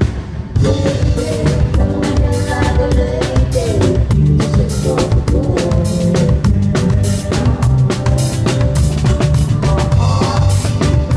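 Live band playing loudly: a drum kit keeping a steady beat with bass drum and snare hits over held instrument notes, the full band coming in about half a second in after a brief dip.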